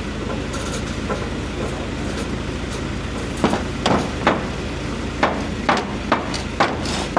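A digger or loader engine runs steadily in the background. From about three and a half seconds in, it is overlaid by a string of about eight sharp knocks and bangs from demolition work on the barn, spaced unevenly, roughly half a second apart.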